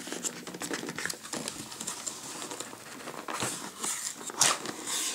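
Hands handling and opening a cardboard shipping box: steady rustling, scraping and small clicks of cardboard, with a few louder rasps in the second half as the box is pulled open.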